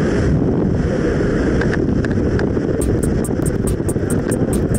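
Loud, steady rush of wind and propeller-engine noise at the open door of a skydiving jump plane in flight. A rapid, high-pitched ticking joins it from about three seconds in.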